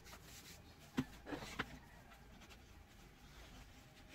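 Faint handling sounds of wooden workpieces on a cutting mat: a few light knocks and taps, three of them close together about a second in.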